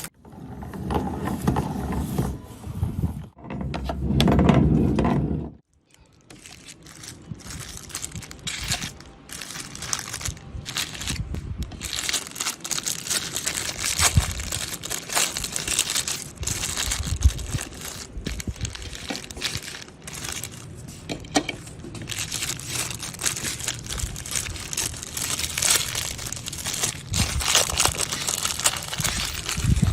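Meat grinder crushing and tearing up an object fed into it: a dense run of crackling, crunching and crumpling noises with many small sharp cracks.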